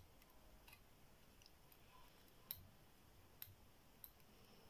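Lock pick and tension wrench clicking faintly in a cross lock as its pins are picked: a few sharp, separate clicks, the loudest about halfway through.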